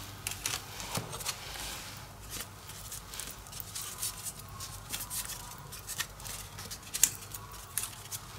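Cut paper pieces being handled and bent: irregular paper rustling and crackling, with a sharper crackle about seven seconds in.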